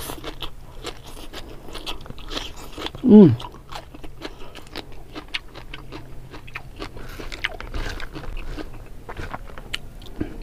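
Close-up crunching and chewing of raw lalapan greens, many small crisp crunches in a row. About three seconds in comes a short vocal sound falling in pitch, the loudest moment.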